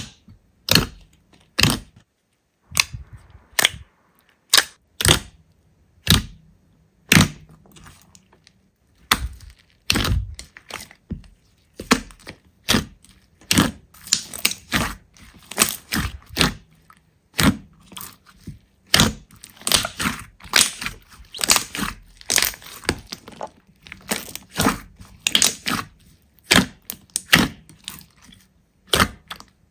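Slime being squeezed and pressed by hand, giving sharp crackles and pops. They come about once a second at first, then grow denser and more irregular from about nine seconds in.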